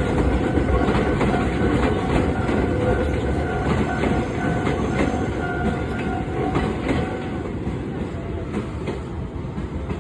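Kobe Electric Railway train running over a level crossing, its wheels clacking over the uneven rail joints with a heavy rumble that slowly fades. A thin steady high tone sounds over it and stops about seven and a half seconds in.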